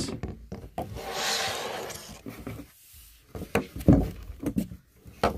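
Light knocks and taps of small miniature village houses being handled and set down on a tabletop, several in a row from about halfway through, after a soft rustling hiss near the start.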